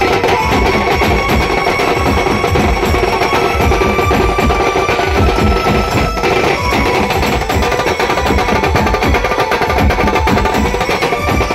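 Indian baraat wedding band playing: several large drums beaten with sticks in a fast, driving rhythm under brass horns holding steady notes.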